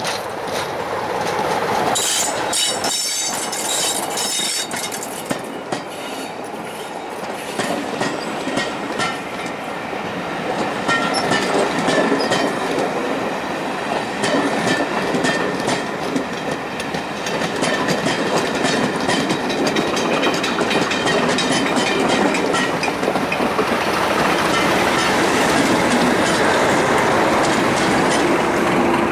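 A Class 27 diesel locomotive runs past at speed hauling a train of coaches. The locomotive's passing is loudest about two to four seconds in, then the coaches' wheels clatter over the rail joints in a steady run of clicks as they go by.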